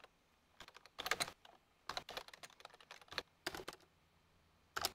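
Typing on a computer keyboard: short irregular runs of keystrokes with brief pauses between them.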